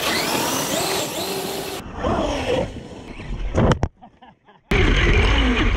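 Traxxas UDR RC truck's brushless electric motor whining, its pitch rising and falling with the throttle, with a few knocks from the truck over rough ground. The sound drops out for under a second just past the middle and comes back abruptly.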